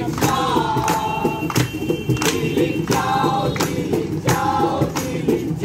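A song with singing voices over a steady, regular beat.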